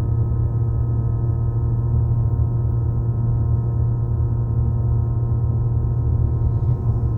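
MG ZS EV giving off a steady low hum with a stack of higher overtones, the humming that comes once the car is hot after 15–20 minutes of driving. MG attributes it to the heavy-duty pump of the battery's water-cooling system running, and calls it normal.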